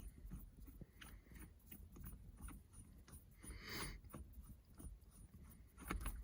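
Faint, scattered small clicks and handling noises of hands working a car's shift knob off the gear lever, with a brief louder rustle about halfway through and a sharper click near the end.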